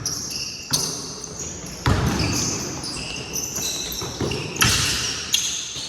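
Basketball bouncing on a gym court, several separate thuds with a short echo, mixed with many short high-pitched squeaks of sneakers on the floor during play.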